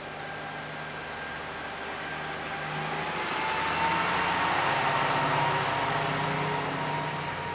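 A train passing, growing louder to a peak around the middle and then easing off, with a steady whine that rises slightly in pitch as it comes.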